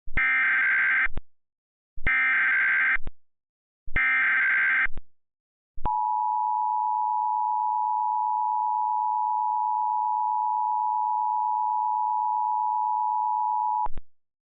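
Emergency Alert System tones: three bursts of SAME header data, each about a second long and about two seconds apart, carrying the header for a severe thunderstorm warning. Then comes the two-tone EAS attention signal, a steady dual tone held for about eight seconds.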